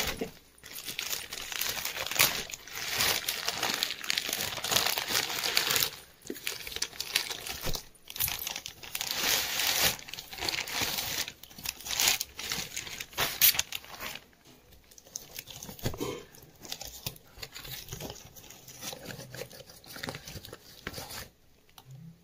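Plastic courier mailer bag crinkling and tearing as it is pulled open, loud and continuous at first. In the last third it gives way to quieter, scattered rustling and scraping as the cardboard box inside is handled and opened.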